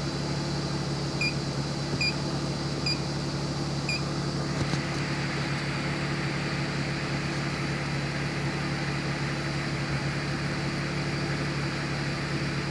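BMW 330Ci's 3.0-litre straight-six idling steadily while it warms up. A few short electronic beeps sound in the first four seconds, and a steady hiss comes in about four and a half seconds in.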